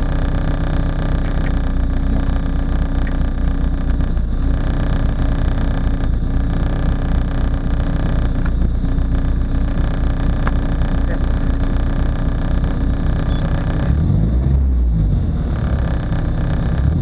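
Nissan Sunny GTi-R's turbocharged four-cylinder engine idling steadily, heard from inside the cabin, then revved up and back down briefly near the end.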